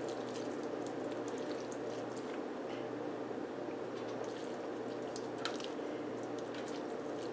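Faint wet dripping and soft squishing as fingers break rinsed spaghetti squash strands apart in a plastic strainer and the excess water drains out, over a low steady hiss.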